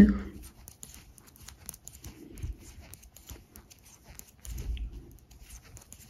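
Knitting needles clicking and yarn rustling as stitches are purled: a string of small irregular ticks, with a couple of soft low thumps about halfway and near the end.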